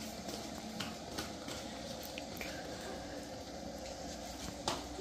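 Steady indoor background noise with a few faint clicks and one sharper knock near the end.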